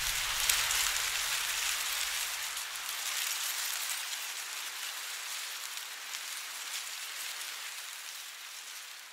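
A steady, rain-like hiss with a fine crackle, and a low rumble that dies away in the first second or two. The whole sound fades out toward the end.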